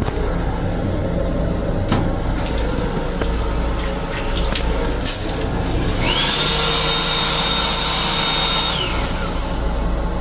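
Rumble of a moving commuter railcar with a few knocks. About six seconds in, the restroom's automatic sink faucet runs for about three seconds, a water hiss with a steady high whine that rises as it starts and drops away as it stops.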